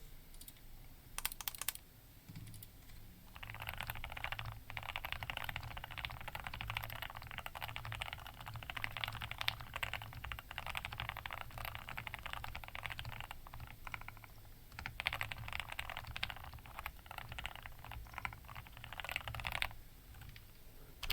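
Typing on a Keychron V1 mechanical keyboard with Gateron Milky Yellow linear switches and PBT keycaps, dampened with case foam and PE switch pads. A few single keystrokes, then fast continuous typing with a brief pause in the middle, stopping near the end.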